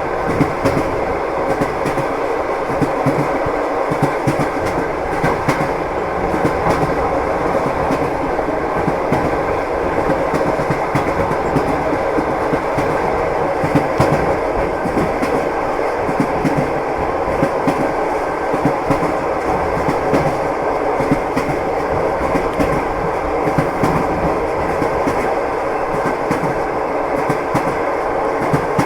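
Train wheels clattering over rail joints with a steady rumble, in a continuous clickety-clack.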